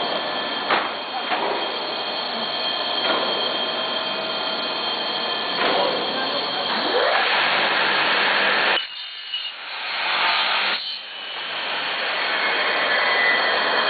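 Industrial profile-processing machine running: a steady mechanical noise with several steady whining tones. It drops away for about two seconds a little past the middle, then picks up again.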